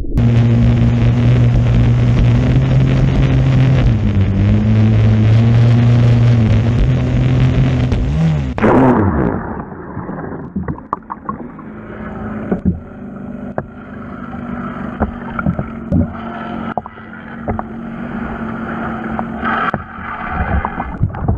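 An RC racing boat's air-cooled string-trimmer engine running hard at a steady high pitch, heard from on board. About eight and a half seconds in, the note sweeps down and the sound turns muffled, with bubbling and small clicks, as the boat goes under the water.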